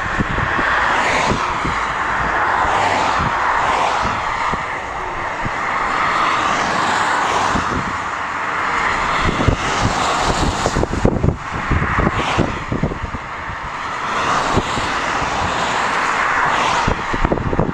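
Gusty wind rushing steadily, swelling and easing every few seconds, and buffeting the microphone with irregular low thumps.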